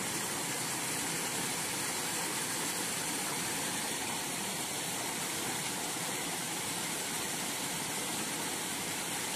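A steady, even hiss with no distinct events, strongest in the high range.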